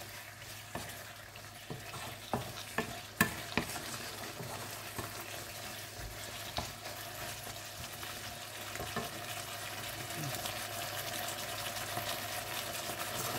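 Wooden spatula stirring and knocking against a wok, with sharp knocks mostly in the first few seconds, over a steady sizzle of pork belly and bamboo shoots frying in red curry paste and coconut milk.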